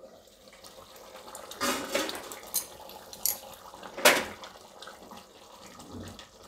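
Thick tomato-and-gram-flour gravy with dhokli bubbling at the boil in a kadai, with a few louder bursts, the sharpest about four seconds in.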